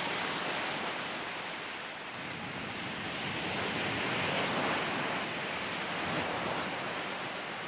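A steady rushing noise, like wind or surf, that swells slowly to its loudest about halfway through and then eases off.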